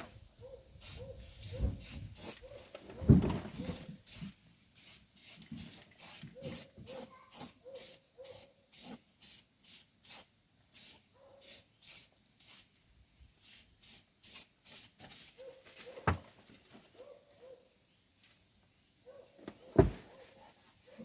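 Aerosol can of Rust-Oleum rubberized undercoating spraying in short, quick bursts, about two a second, stopping about fifteen seconds in. A few sharp knocks follow.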